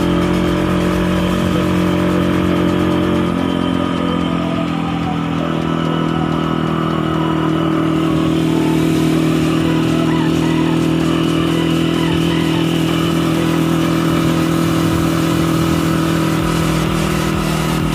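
Supermoto motorcycle engine running steadily under way, heard from on board, its pitch shifting slightly about four seconds in.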